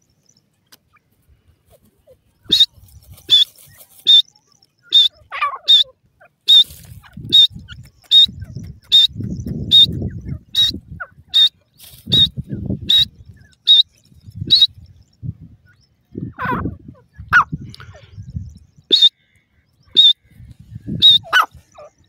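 Grey francolins (adult and chicks) calling: a long series of short, sharp high notes at roughly one every 0.8 seconds, pausing for a few seconds and returning three more times near the end, with a few longer sliding calls lower in pitch. Bursts of low rustling noise sit between the calls.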